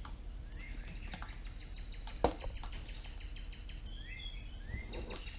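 Small birds chirping in the background, with short rising chirps and a fast trill in the middle, over a steady low hum. A single sharp click a little over two seconds in is the loudest sound.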